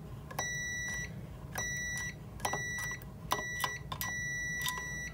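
Multimeter continuity beeper sounding in five high beeps of uneven length, each starting with a small click as the test probe touches a transformer socket contact. The beeps show continuity between the input and output sides: there is no isolation, the unit is an autotransformer.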